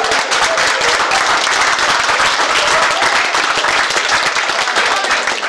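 Audience applauding: many people clapping, steady and dense.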